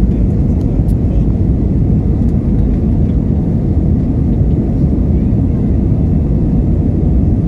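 Steady low rumble of engine and airflow noise inside an Airbus A320 passenger cabin in flight, heard from a window seat.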